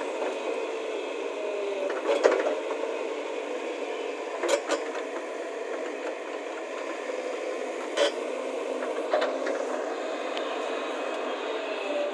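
Heavy digging machine's diesel engine running steadily, with a few sharp knocks over it.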